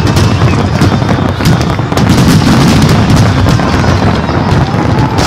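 Aerial fireworks going off: many overlapping booms from shells bursting, with continuous crackling.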